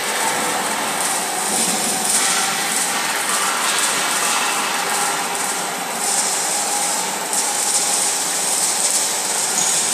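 Loud, steady machinery noise from running industrial equipment, an even rumble and hiss with a few faint steady tones.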